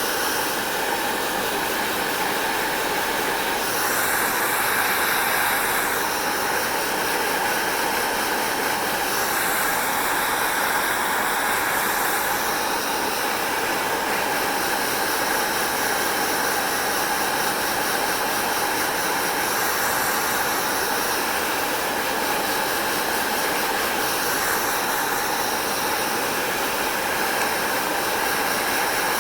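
Electric hair dryer blowing steadily, with a constant whooshing hiss of air and a faint motor whine; the tone of the airflow shifts slightly every few seconds.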